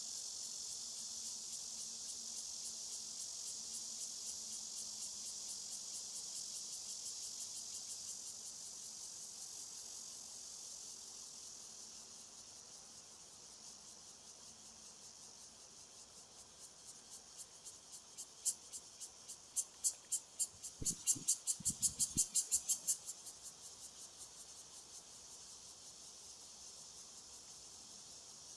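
Insects buzzing in a high, fast-pulsing drone that fades over the first half. Later a louder run of quick pulses builds and cuts off a few seconds afterwards, with a few soft knocks in the middle of it.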